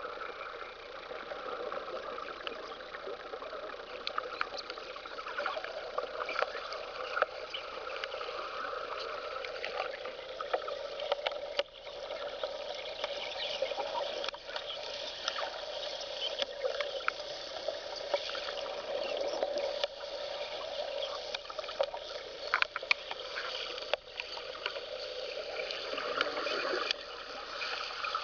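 Underwater cutting torch burning a rod against a steel piling, heard underwater: a steady hiss and crackle with many short sharp pops.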